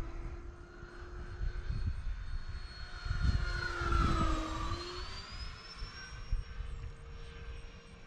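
Twin electric ducted fans of a Freewing A-10 RC jet whining on a low pass, the pitch dropping as it goes by about four seconds in. Wind rumbles on the microphone.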